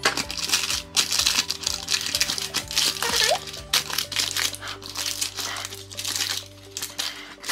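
Baking paper crinkling and rustling as a silicone spatula spreads and presses soft chicken nugget batter into a paper-lined round pan, with irregular crackles throughout. Background music plays underneath.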